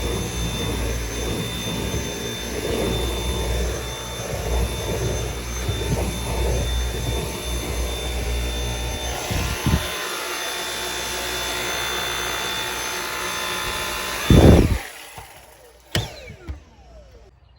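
Dyson V8 cordless vacuum running with a steady high whine, its nozzle rubbing and rumbling over car carpet. About fourteen seconds in there is a loud thump, then the motor is switched off and whines down, with a couple of clicks near the end.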